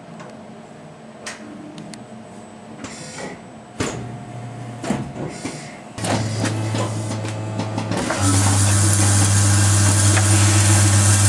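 Scattered clicks of machinery at first, then a vibratory bowl feeder starts a steady low buzzing hum about six seconds in, growing louder about two seconds later as the loose small metal pins in the bowl set up a dense metallic rattle.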